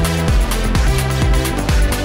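Electronic dance music with a steady beat, about two drum hits a second over a held bass line.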